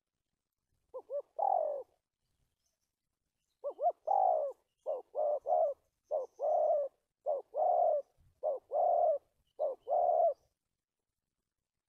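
Spotted dove cooing repeatedly, about six phrases, each with two or three short stammering notes before a longer drawn-out coo.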